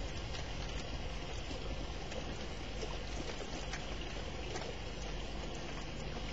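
Steady thunderstorm rain, a constant hiss with scattered sharp ticks of drops, picked up through a webcam's microphone.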